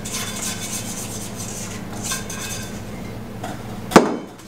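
A spatula scraping the last of a custard base out of a stainless steel mixing bowl into a saucepan: a steady rubbing scrape of the blade against the metal. About four seconds in comes a single sharp knock, as the metal bowl is set down on the counter.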